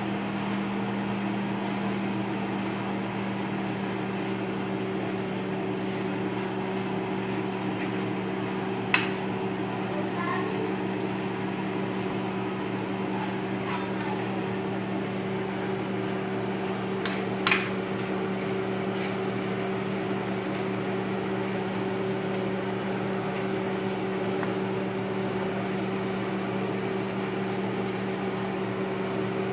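A steady mechanical hum with a few low tones held throughout. Metal tongs clink sharply against the skillet a couple of times as the linguine is tossed.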